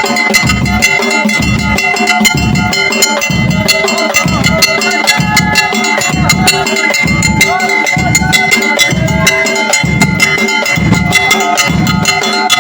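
Festive Moroccan music: hand drums keep a steady, loud beat under fast metallic clacking percussion, with a held high tone running through it.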